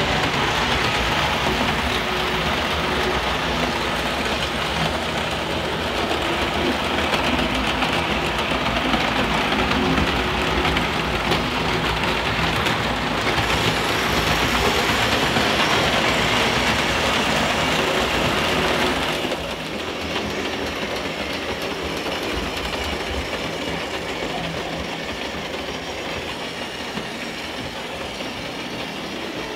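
Märklin H0 model trains running on metal M-track: a Märklin 3629 E91 electric locomotive hauling hopper wagons, with a second train on the track behind, giving a steady rumble and clatter of wheels on the metal rails. The sound drops suddenly to a lower level about two-thirds of the way through.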